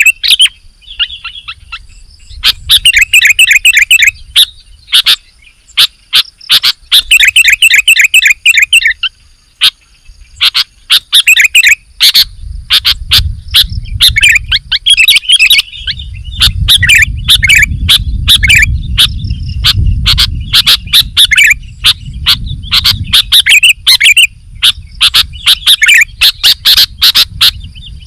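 Sooty-headed bulbul (kutilang) singing loudly in bursts of quick, bubbly chirping phrases, with sharp short notes between them. A low rumble runs underneath through the middle stretch.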